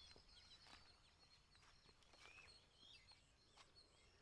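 Near silence: faint bird chirps in the background, with a few faint clicks.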